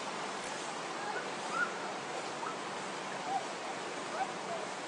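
Steady outdoor rushing noise with a few short, separate chirps, about one every second, rising or falling in pitch.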